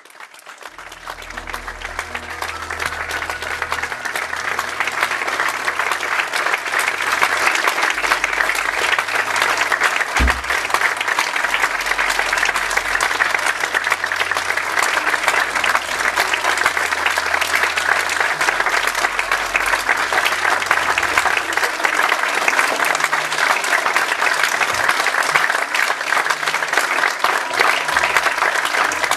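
Audience applauding. The clapping starts out of silence, swells over the first few seconds, then holds steady and dense.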